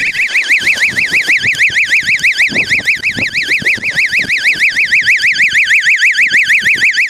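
Electronic siren sounding a loud, rapid warble that rises and falls many times a second, switched on to drive a deer out of the bushes toward a waiting hunter.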